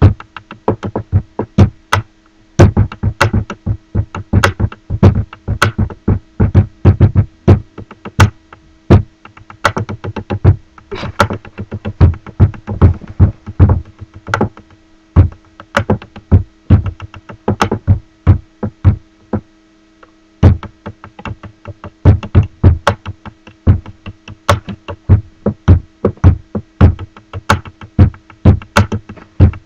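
Pen drumming on a wooden table: fast, rhythmic clicks and knocks played as drum-beat patterns. It stops briefly about two seconds in and again about twenty seconds in.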